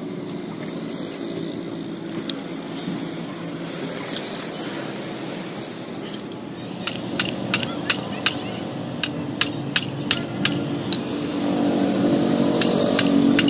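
Hammer tapping a steel punch against a hydraulic jack's steel body: about a dozen sharp metallic taps, two to three a second, starting about halfway in, over steady street noise. An engine rumble grows louder near the end.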